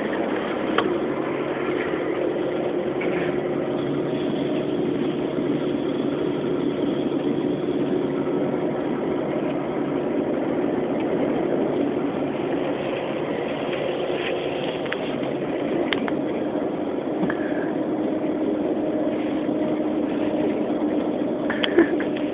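Steady engine and road drone heard from inside a moving vehicle, with a held low hum and no change in level. There is a short click near the end.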